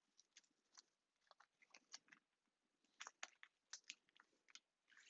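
Faint, scattered crinkles and small ticks of hands handling a bag of card-making shaker fronts.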